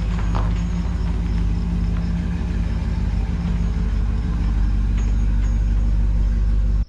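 Motor vehicle engine running steadily, a loud, even low hum.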